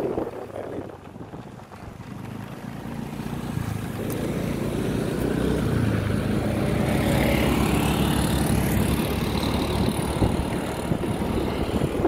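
Small motorcycle riding along a road, heard from the rider's seat: engine and wind on the microphone. It is quieter for the first couple of seconds, then grows louder, with a rising engine note a little after the middle.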